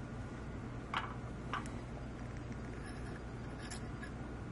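Quiet room with a steady low hum and three faint, sharp clicks: one about a second in, one shortly after and one near the end.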